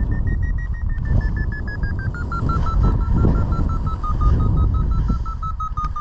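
Paragliding variometer giving its climb tone: a rapid string of high beeps whose pitch peaks about half a second in, then drops and holds lower, signalling a very strong thermal climb that then eases off. Wind rushes over the microphone underneath.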